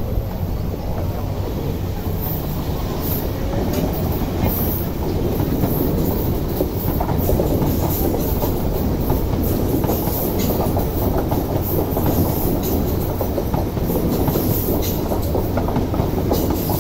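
MTR East Rail Line electric multiple-unit trains running past on the tracks, two side by side. Their rumble is steady and slightly louder in the second half, with scattered clicks of the wheels going over rail joints and points.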